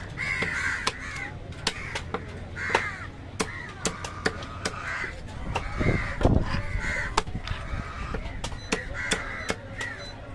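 Crows cawing over and over, with sharp knocks of a knife on a wooden chopping block as fish is cut into chunks, and a heavier cleaver thud about six seconds in.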